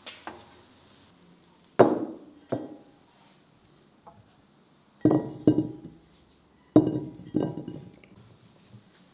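Whole potatoes set one by one into an unglazed clay baking dish, each landing with a hard knock and a brief ring, in three pairs about half a second apart.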